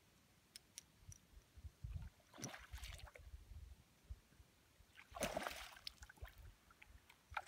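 A hooked smallmouth bass splashing at the water's surface twice: a shorter splash about two and a half seconds in and a louder one about five seconds in.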